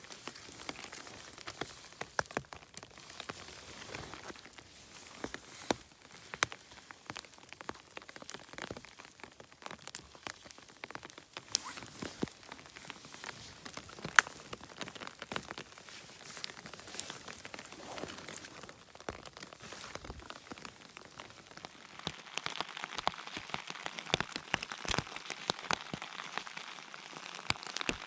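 Rain falling on the forest floor: a steady patter with many sharp, close drop taps, growing louder over the last several seconds.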